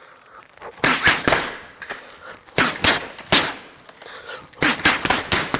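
Boxing gloves landing on a Ringside uppercut bag in three quick combinations of short inside uppercuts and hooks, three to five hits in each flurry.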